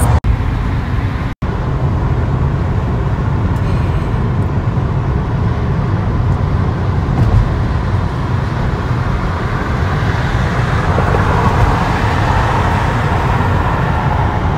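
Steady road noise inside a moving car: a low rumble from the tyres and engine. It drops out briefly twice within the first second and a half.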